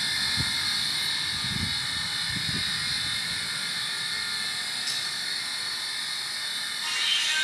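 Steady high hiss throughout, with a few soft low thuds of footsteps in the first three seconds.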